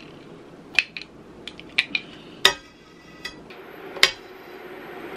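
A metal butter knife clinking and tapping on a jar and a stainless steel skillet as scoops of solid coconut oil are knocked off into the pan: a string of sharp clicks, with a loud strike about halfway through that leaves the pan ringing briefly and another near the end.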